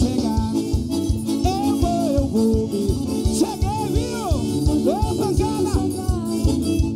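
Live forró band playing at a steady beat: accordion melody over the regular strikes of a zabumba bass drum.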